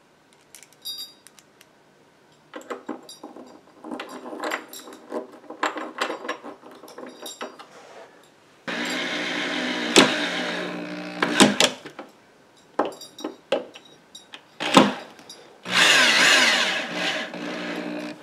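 Cordless drill driving a screw through a steel L-bracket into the top of a flat-pack bookshelf, in two runs of a few seconds each, about halfway through and again near the end. Before the drilling there are scattered clicks and light knocks.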